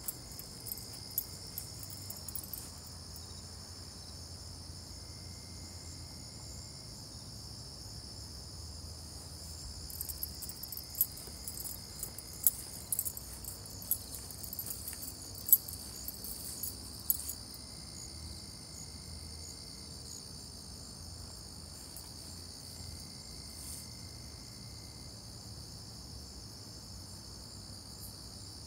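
Steady high-pitched chorus of night insects, like crickets, running without a break. A few sharp clicks and knocks come in the middle.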